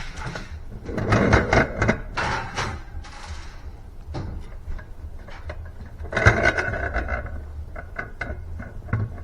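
Kitchen handling sounds while a bowl is weighed on a triple-beam balance: rustling and scraping in two stretches, with scattered light knocks and clicks.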